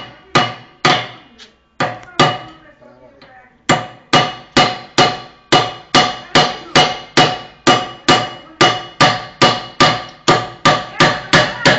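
Hammer blows on the metal parts of a Brastemp washing machine's gear mechanism, each strike ringing. A few spaced blows, a short pause, then steady hammering at about three strikes a second.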